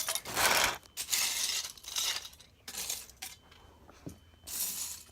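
Loose plastic Lego bricks clattering as a hand rummages through a pile of pieces, in several short bursts with pauses between.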